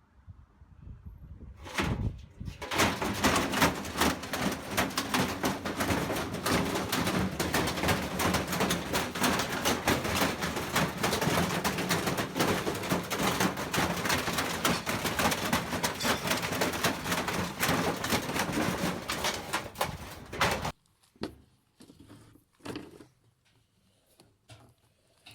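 Damaged washing machine running under power, a dense loud rattling and clattering over a steady motor hum. It starts about two seconds in and cuts off suddenly near the end, followed by a few light knocks.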